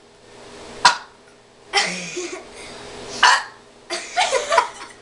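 A man forcing out short burps after chugging carbonated Diet Coke, trying for the loudest burp. A sharp click comes about a second in, short burps follow around two and three seconds in, and a few broken vocal sounds come near the end.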